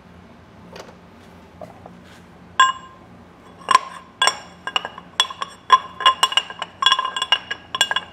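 A metal plate tapped repeatedly with a metal tool: about twenty sharp clinks, starting about two and a half seconds in and coming faster toward the end, each with the same bell-like ring.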